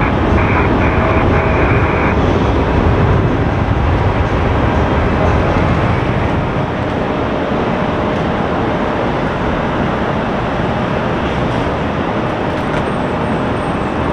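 Jet airliner engine noise, a steady rumble that eases off about halfway through as the aircraft moves away. A clipped air traffic control radio transmission ends about two seconds in.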